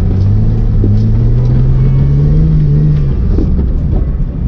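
Jeep Wrangler engine pulling along a snow-covered trail, its note rising steadily for about two and a half seconds, then breaking off about three seconds in.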